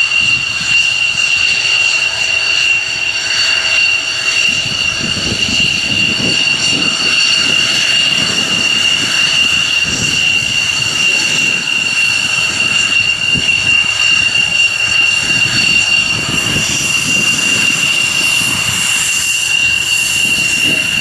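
Jet turbine running steadily: a high, even whine with fainter higher overtones above it, over a low fluttering rumble.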